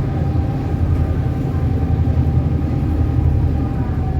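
Electric passenger ferry under way: a steady low rumble with a faint, steady higher whine over it.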